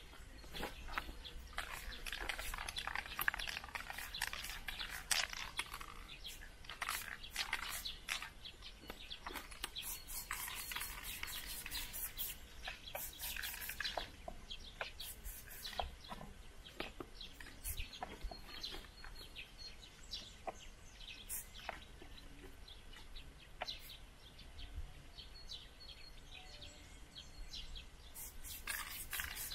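Aerosol spray paint can hissing in short bursts of about a second or two, with birds chirping faintly in the background.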